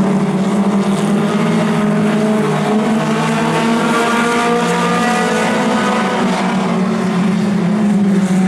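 Several mini stock race car engines running together in a steady drone as the field circles at caution pace. Some engine notes rise in pitch about three to five seconds in.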